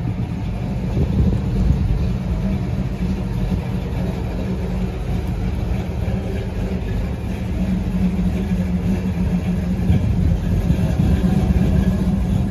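A car engine running steadily at idle, a continuous low rumble, with street noise around it.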